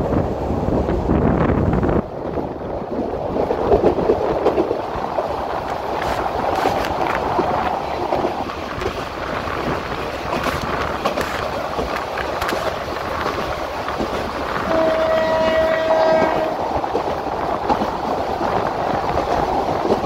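A train running on the line, a steady noisy rumble and clatter, with one horn blast held for about a second and a half near the three-quarter mark. The low rumble drops off abruptly about two seconds in.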